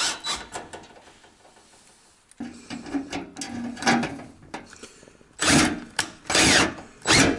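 Cordless drill/driver running a self-drilling washer-head screw through the sheet-steel wireway into the wood wall, in several short runs: a steadier, lower run about two and a half seconds in, then three louder bursts over the last two seconds.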